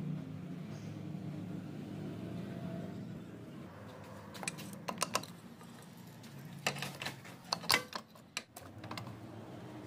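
Metal hand tool clicking and tapping against a car's front wheel hub, in two short clusters of sharp clicks over a low steady hum.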